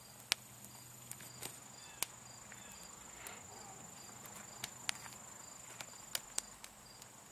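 Damp split firewood burning in a fire ring, crackling with scattered sharp pops. Faint insects chirp steadily behind it.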